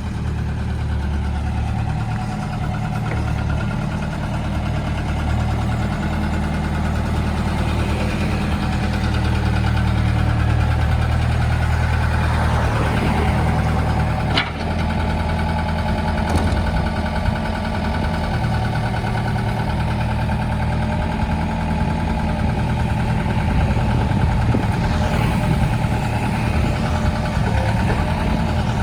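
A Hyundai vehicle's engine idling steadily, with one sharp click about halfway through.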